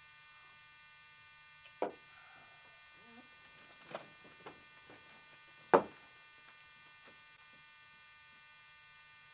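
Steady electrical hum under a few sharp knocks on a wooden desk: a mug set down, then phone handling, and a louder thump a little past halfway as feet are swung up onto the desktop.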